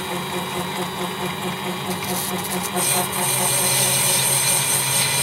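Mini lathe running steadily at low speed while a parting tool feeds into spinning brass bar stock, cutting the bushing off; a high hiss grows stronger about three seconds in.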